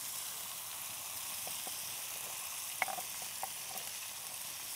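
Nutria legs searing in oil in cast-iron pans over a wood fire, a steady sizzle. A few light clicks of metal grill tongs come through as chopped tomatoes are scraped into the pans.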